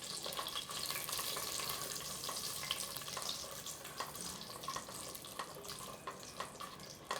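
Cashews and whole spices sizzling in hot ghee in a pan, a steady crackle with many small pops that eases off slightly toward the end.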